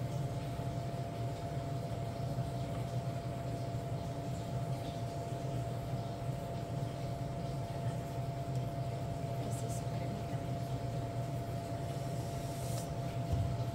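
Steady low hum with a faint constant high whine from a running kitchen appliance, with a few faint light clicks in the second half.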